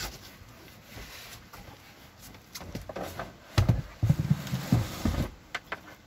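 Hard-sided plastic cooler being shoved and bumped into a tight space, heard as a cluster of dull knocks and thumps in the second half.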